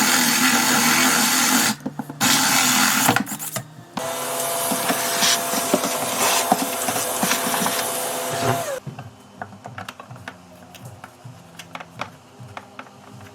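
A power tool's electric motor running in bursts: a loud steady rush that cuts off and comes back twice, the last run of about five seconds carrying a steady hum that sags slightly as it switches off. Light clicks and knocks follow.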